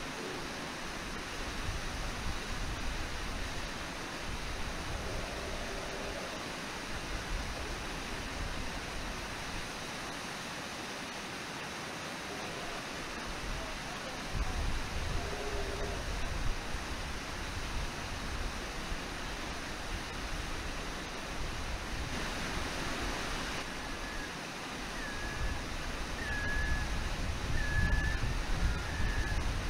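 Steady rushing of a waterfall and river rapids, with low rumbling gusts in the latter half and a few short high chirps near the end.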